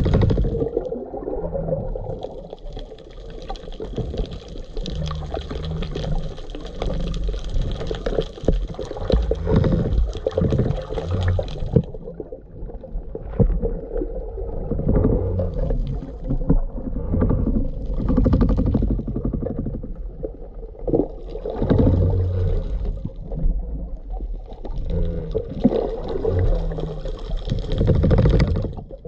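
Underwater ambience picked up by a camera in its waterproof housing: a low, surging rumble of moving water with scattered clicks and crackle. A higher hiss runs from about two seconds in until about twelve seconds, then returns in short surges.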